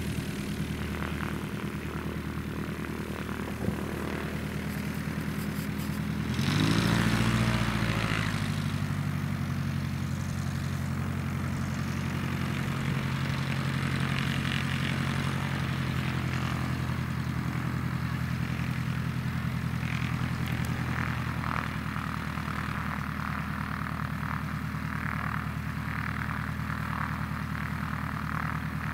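Light aircraft propeller engines running at a steady idle while taxiing. About six and a half seconds in, the throttle opens in a short, louder surge that rises in pitch and falls back to idle.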